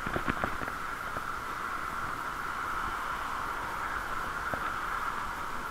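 Steady hiss of bicycle riding noise, muffled by the camera's waterproof case, with a few light clicks and rattles right at the start and one more near the end.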